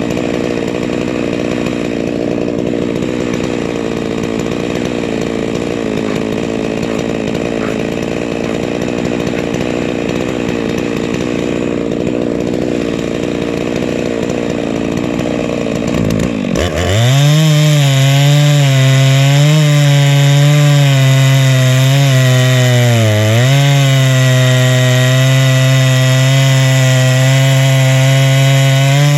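Huztl MS660-clone two-stroke chainsaw running steadily at a lower speed, then about two-thirds of the way in it briefly dips and revs up sharply, getting louder and holding a high, slightly wavering pitch as it saws through the log on a chainsaw mill.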